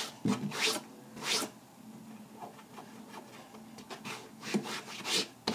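A handful of short rubbing swishes of cloth brushing against the phone's microphone as it is handled close against a T-shirt.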